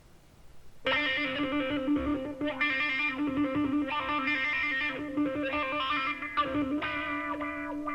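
Recorded music played back through a single Bang & Olufsen Beolab Penta speaker: a guitar-led song intro starts abruptly about a second in, with a steady held low note under a run of picked higher notes.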